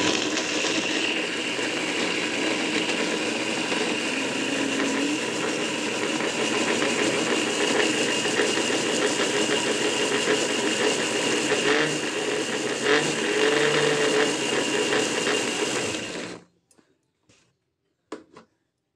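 Electric mixer-grinder running with a small stainless steel jar clamped on, grinding steadily with a motor whine. It is switched off about sixteen seconds in and stops suddenly, followed by a few light clicks as the jar is lifted off the base.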